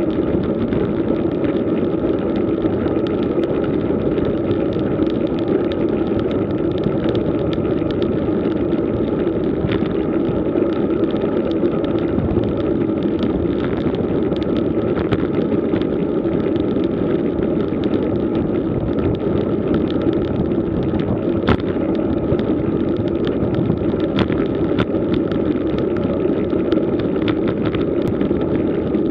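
Steady wind and tyre-on-road noise from a road bike riding over rough asphalt, picked up by a bike-mounted camera, with a few sharp clicks after the middle.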